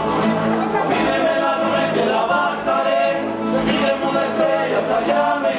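Rondalla music: a group of voices singing together in harmony, loud and continuous.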